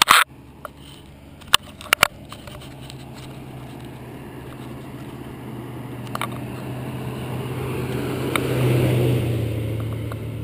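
A car passing on the road: engine and tyre noise growing louder to a peak about nine seconds in, then fading. A few sharp clicks in the first two seconds and one about six seconds in.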